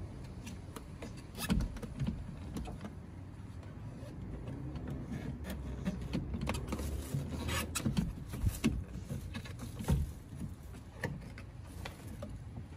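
Scattered clicks and knocks of plastic and metal as a replacement door mirror is handled and worked into its mount on an Alfa Romeo Giulietta's door, over a low steady rumble.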